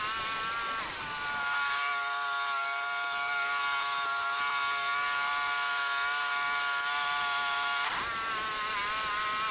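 Wood-Mizer LT15 portable band sawmill running through a pass in a hard maple log: a steady buzzing drone that drops in pitch about a second in as the blade takes the cut under load, holds, and rises back after about eight seconds as the load comes off.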